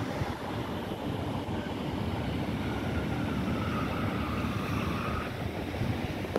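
Wind buffeting the microphone over the steady noise of road traffic, with a car driving past around the middle.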